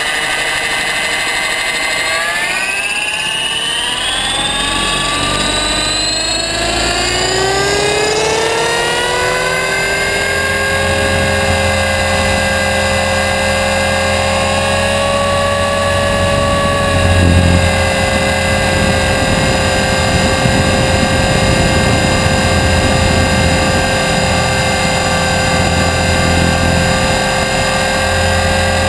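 A 500-size RC helicopter's motor and rotor, heard from a camera on the airframe. It spools up with a smoothly rising whine over roughly the first ten seconds, then holds a steady whine at flying speed once airborne.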